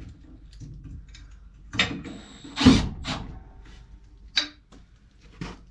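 Metal tools clicking and knocking against the pipe unions and fittings on top of a water heater as they are worked on, a series of separate sharp clanks, the loudest about two and a half seconds in.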